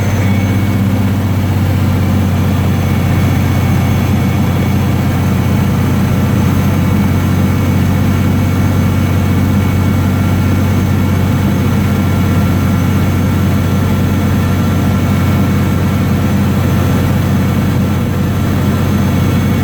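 Cummins NHC250 inline-six diesel of an M923A1 5-ton truck held at a steady raised idle of about 2,000 rpm, heard from inside the cab. The air-conditioning blower runs on high under the engine's even, unchanging drone.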